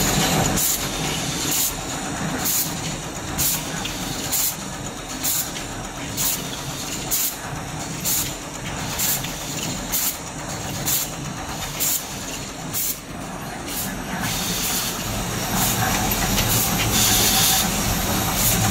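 Automatic toothbrush making machine running: a short, sharp hiss of air from its pneumatics repeats a little more than once a second over a steady mechanical hum. About fourteen seconds in the hissing rhythm stops and gives way to a steadier, slightly louder running noise.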